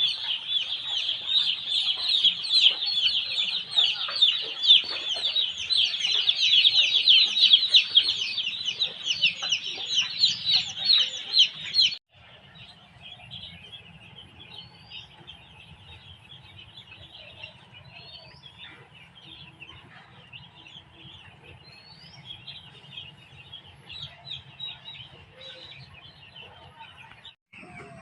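A large flock of young chicks peeping continuously, a dense chorus of short high cheeps. About twelve seconds in it drops suddenly to a quieter, thinner chorus over a faint low hum.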